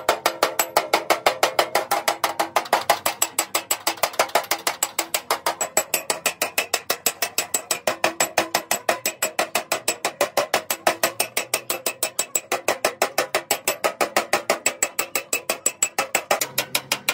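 Hammer beating out dents in a detached steel car body panel: rapid, even metallic strikes, about four or five a second, each with a short sheet-metal ring.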